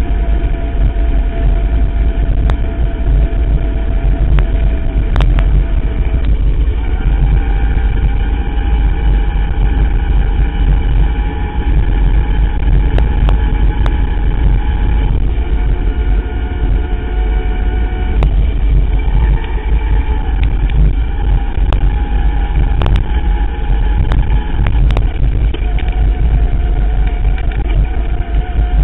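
Electric mountain bike riding at speed: the motor's steady whine steps up and down in pitch as speed changes, over a heavy low rumble of wind and tyres, with scattered sharp clicks and rattles from bumps in the path.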